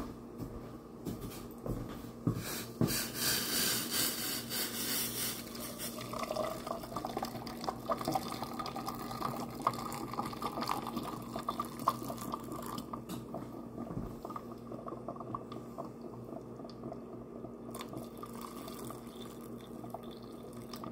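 Boiling-hot water poured from a metal pot into a tall glass, splashing and filling, with the pitch of the filling rising steadily as the water level climbs around a car engine thermostat.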